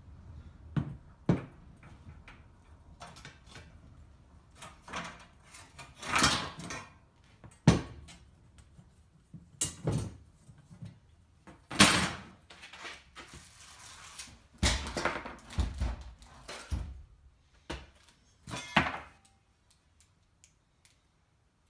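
Irregular knocks, clanks and scrapes of metal seat parts and fittings being worked loose and handled inside a bus, a hit or scrape every second or two, dying away near the end.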